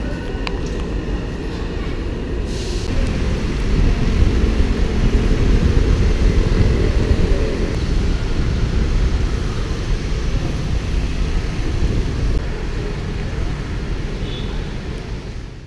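Steady rumble of city street traffic, cars and scooters running past, growing louder about four seconds in.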